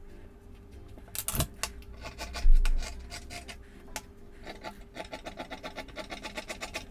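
Scissors snipping through folded lining fabric on a table: a few scattered snips, then a fast, even run of short cuts in the second half. A low thump on the table about two and a half seconds in is the loudest sound.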